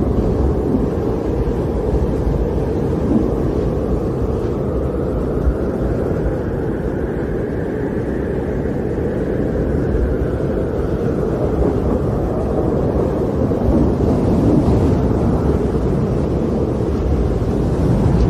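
Storm wind blowing in a steady low rush, with one gust swelling up and dying away in the middle.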